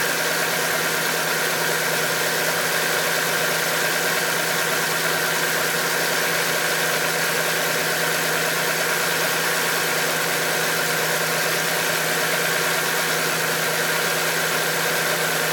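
Audi 2.7 biturbo V6 (ARE) engine idling steadily after a cold start, with a steady high-pitched tone running over the idle. The owner reports a strange noise that comes on randomly after cold starts, once like a big fan and now like metal on metal.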